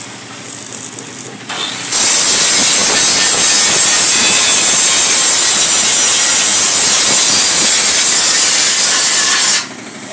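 Hand-held angle grinder grinding a steel frame, a loud steady grinding hiss. It eases off at the start, bites into the metal again about two seconds in, and cuts off shortly before the end.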